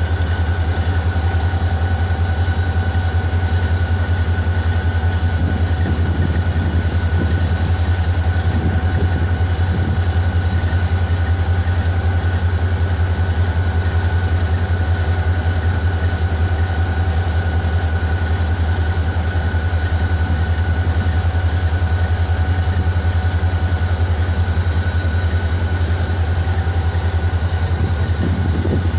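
Diesel locomotive engine idling steadily: a constant deep hum with a steady high whine over it.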